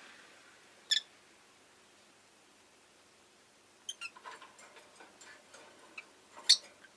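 Rosy-faced lovebird giving short, sharp chirps: one about a second in, a loose run of soft, quick ticks and chirps a few seconds later, and a louder chirp near the end.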